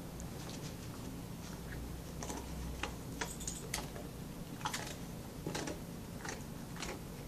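Airedale Terrier crunching hard bone-shaped dog biscuits: irregular sharp crunches and clicks, coming more often from about two seconds in.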